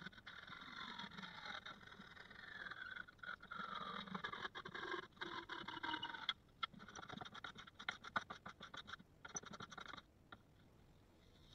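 Handsaw cutting across a pallet-wood board: steady rasping strokes, getting quicker and choppier about six seconds in, then stopping about ten seconds in.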